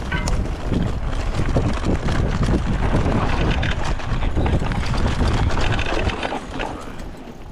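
Wind rushing over the microphone during a fast downhill ride, with a dense rattle and knocking from the bike bouncing over rough trail. It eases a little near the end.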